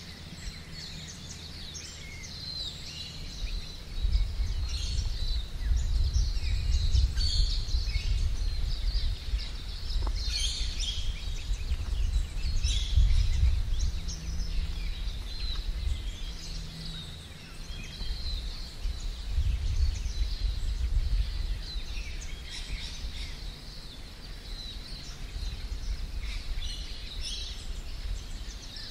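Birds calling and chirping on and off in the bush, high and thin. Under them a low, uneven rumble comes in about four seconds in and carries most of the loudness.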